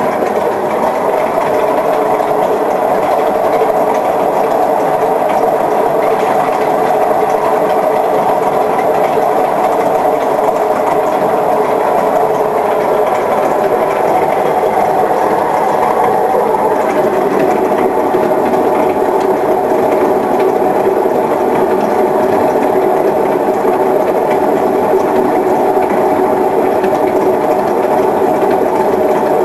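Privileg Ergonomic 1600 S washing machine running with a badly damaged drum bearing: a loud, steady mechanical drone whose tones shift about halfway through.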